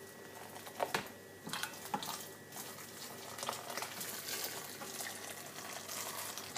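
Water being poured slowly into a cooking pot, trickling and splashing steadily. There are a couple of light knocks in the first two seconds.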